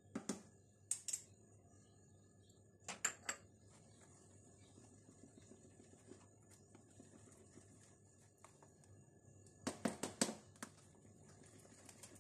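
Wire whisk stirring batter ingredients in a plastic tub, mostly soft, with a few sharp taps of the whisk against the tub's sides and a quick run of taps about ten seconds in.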